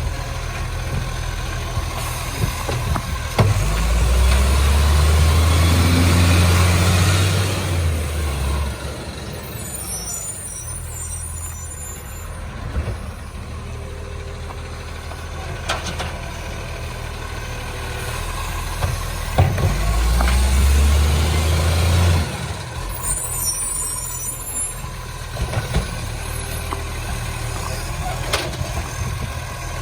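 Recycling truck's diesel engine running, revving up hard twice for several seconds each time, each rev followed shortly by a short burst of air hissing.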